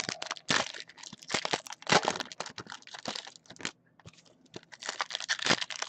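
Trading card packs being torn open by hand, wrappers crinkling and tearing in irregular bursts, with a short pause about four seconds in.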